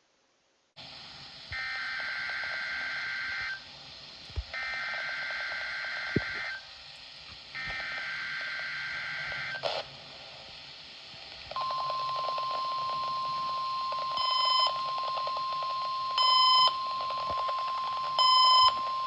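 NOAA Weather Radio test signal received over the air with static hiss. Three bursts of the SAME digital header's warbling data tones come first. About eleven seconds in, the steady 1050 Hz warning alarm tone starts, with three louder short beeps about two seconds apart over it near the end.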